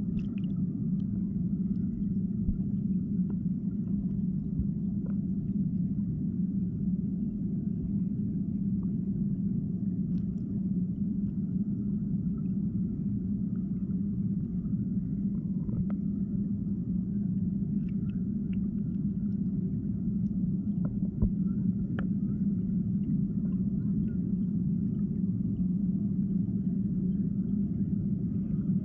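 Steady, muffled underwater rumble of river water picked up by a camera submerged on the riverbed, with a few faint clicks scattered through it.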